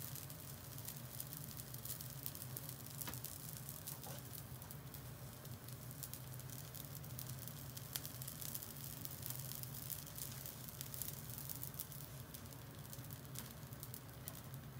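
Yakimanjuu buns grilling: a faint, steady sizzle with scattered crackling ticks over a low hum.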